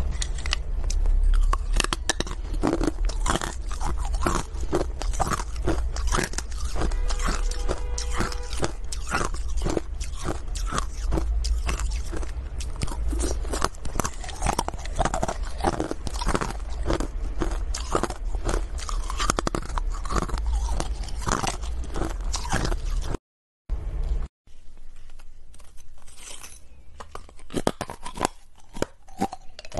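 Hard ice being bitten and chewed: a dense run of sharp crunches. The sound cuts out for about a second a little over twenty seconds in, then the crunching goes on more quietly.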